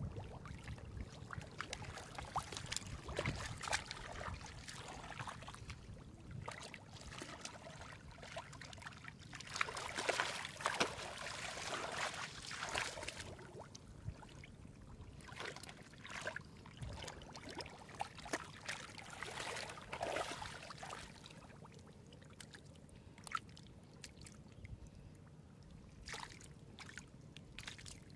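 Hands splashing and sloshing through shallow muddy water and squelching into soft wet mud as someone gropes for fish by hand. The splashes come irregularly and are busiest around the middle.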